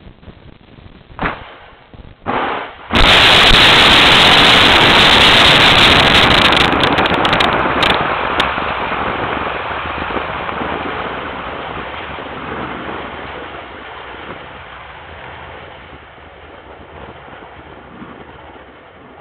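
Dnepr rocket launching from its silo: two short bangs, then about three seconds in a sudden, very loud blast that runs on as a rumbling roar with some crackle and fades slowly.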